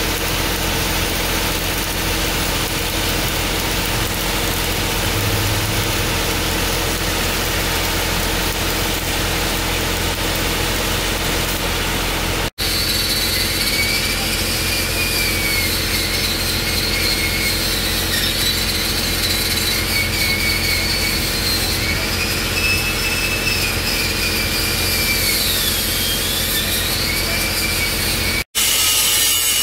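Arc-welding electrode crackling and hissing on a steel pipe joint over a steady engine hum. About twelve seconds in, an angle grinder takes over, its motor whine dipping and rising in pitch as the disc is pressed to and eased off the weld.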